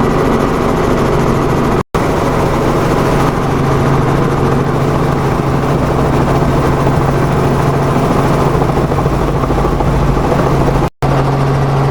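An engine running steadily with a constant low hum, broken twice by sudden drops to silence where the audio is cut, about two seconds in and near the end.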